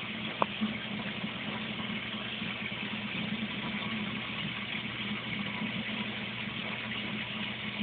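A steady low machine hum with hiss, and one sharp click about half a second in.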